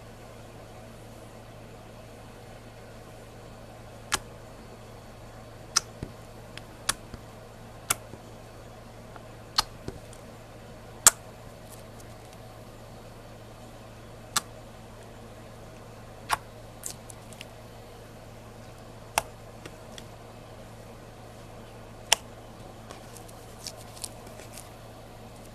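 Glitter slime being stretched and pressed by hand, giving a dozen or so sharp pops and clicks at irregular intervals as air pockets in it burst, over a steady background hum.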